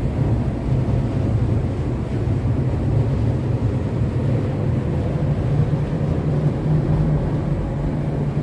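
Steady low mechanical rumble that holds unchanged throughout.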